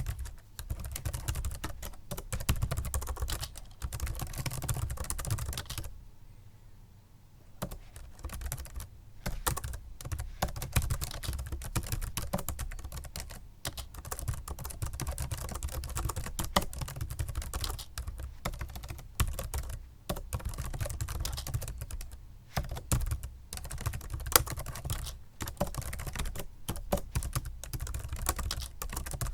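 Continuous fast typing on a Microsoft Sculpt Ergonomic membrane keyboard: an irregular stream of key presses, with a pause of about a second and a half about six seconds in.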